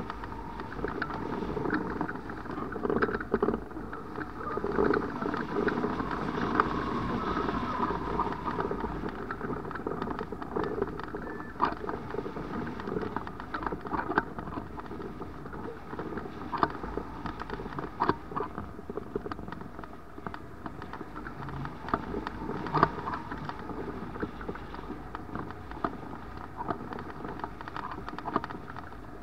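Air rushing over a camera fixed to a hang glider in flight, as steady wind noise that is louder for the first several seconds and then settles, with scattered sharp clicks and taps.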